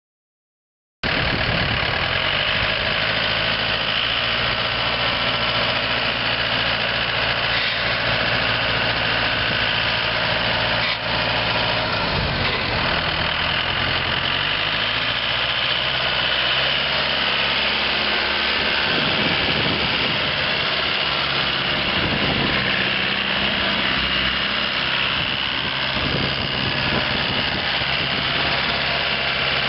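A 2010 Mahindra 4025 tractor's four-cylinder diesel engine running at about idle, with its pitch shifting a few times midway.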